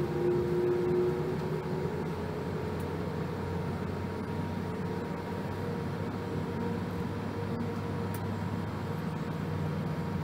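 Steady cabin noise of a Boeing 787-8 taxiing, heard from a seat over the wing: a low engine hum with a faint steady whine above it. A short extra tone sounds in the first second.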